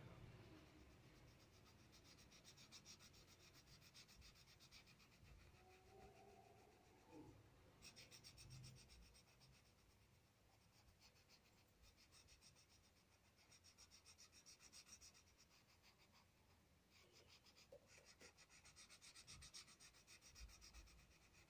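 Faint scratching of a coloured pencil shading on paper, in quick back-and-forth strokes that come in several spells with short pauses between.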